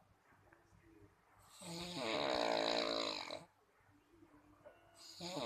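A person snoring in slow, regular breaths: one long pitched snore about a second and a half in, lasting about two seconds, and the next starting near the end, with quiet gaps between them.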